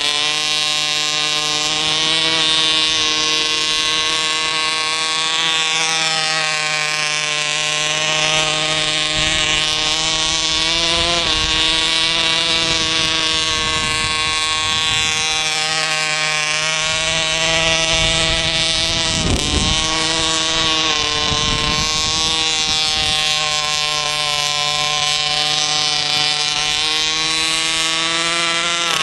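Small two-stroke engine of a radio-controlled model car running steadily at high revs. Its pitch dips briefly a few times as the throttle comes off, then climbs again.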